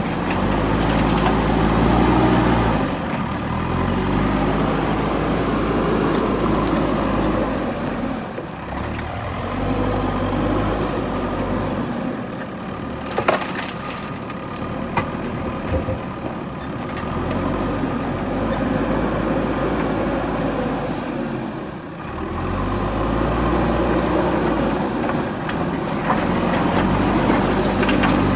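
Diesel engine of a JCB backhoe loader at work, its revs rising and falling several times, with a few sharp knocks around the middle.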